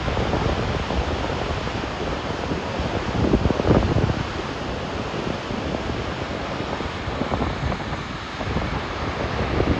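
Dettifoss waterfall thundering as a steady, deep rushing roar, with wind buffeting the microphone in uneven low gusts.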